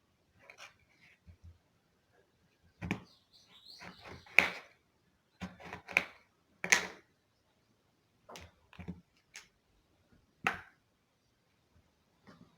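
Kitchen handling sounds: a dozen or so sharp knocks and clatters, irregularly spaced, as cut lemons and utensils are handled while being prepared for preserving.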